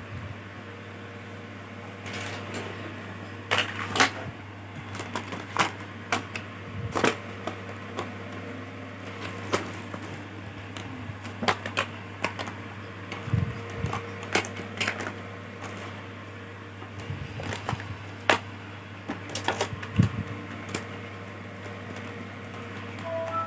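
Irregular sharp clicks and light taps, many of them scattered throughout, over a steady low hum.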